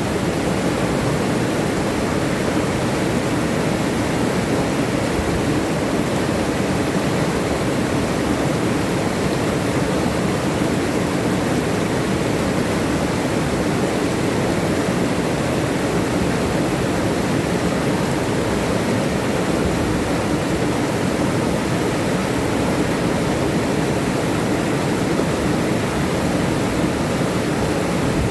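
River water rushing and tumbling over rocks: a steady, even rush of flowing and falling water.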